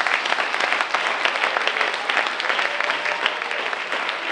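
Congregation applauding: a dense, steady patter of many hand claps.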